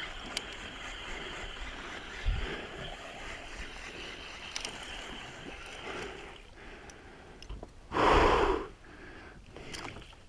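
Sea water lapping and sloshing around a small kayak, with a few light knocks, then a short loud splash about eight seconds in.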